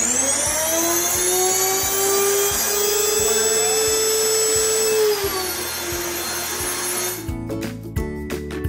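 Nutrimill Classic electric grain mill switched on: its motor whines up to speed and then runs steadily with a high-pitched whine. The pitch dips slightly about five seconds in, and the sound cuts off suddenly about seven seconds in.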